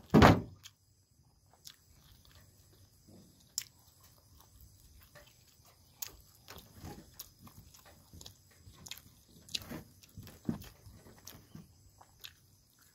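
Close-up mouth sounds of a man eating with his hands: chewing with scattered wet smacks and clicks, and one louder bite-like sound right at the start.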